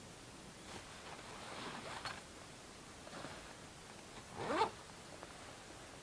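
Fabric and gear being handled: soft rustling, then one short, louder rasping pull about four and a half seconds in.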